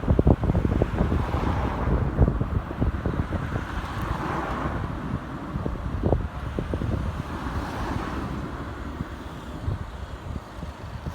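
Wind buffeting the microphone: uneven low rumbling with many short thumps, easing off a little toward the end.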